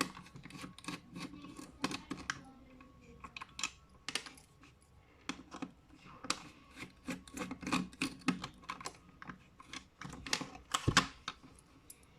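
Irregular small plastic clicks and taps as a car power-window master switch is handled and taken apart by hand.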